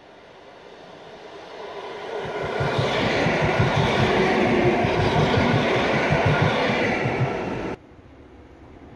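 Electric multiple unit approaching and running past at speed, growing to a loud rush with rapid rhythmic clatter of wheels over the rails. The sound cuts off suddenly about eight seconds in.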